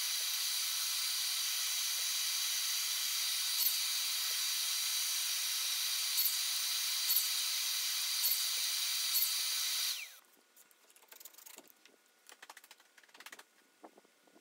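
A power tool runs steadily, a high hiss with a thin whine over it and a few brief ticks, then cuts off abruptly about ten seconds in. After it, only faint light taps from small wood pieces being handled.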